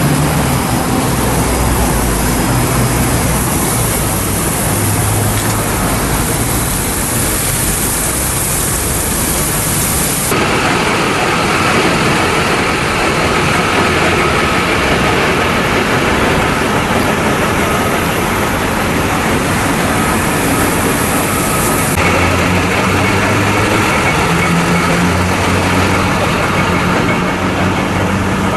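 A heavy vehicle's engine idling steadily under a loud hiss, the sound changing abruptly twice: about ten seconds in and again about twelve seconds later.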